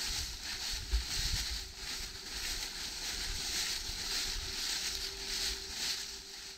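Footsteps crunching and rustling through dry fallen leaves on a trail, roughly two steps a second, with wind rumbling on the microphone. It cuts off suddenly near the end.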